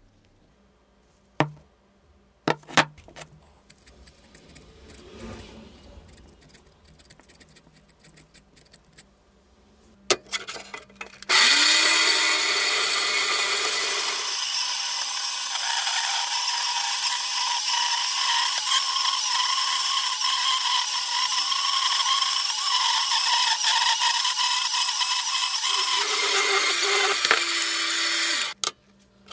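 A few light knocks of a steel bar being handled, then a vertical bandsaw starts a little over a third of the way in and its blade cuts through the round steel bar with a steady, high hissing whine. The sound shifts a few seconds after the start and again shortly before the saw stops near the end.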